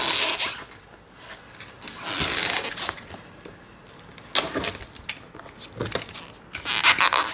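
Cardboard power-supply box being opened and handled: flaps and packaging sliding and rubbing in several short bursts, with a few sharp taps and clicks midway.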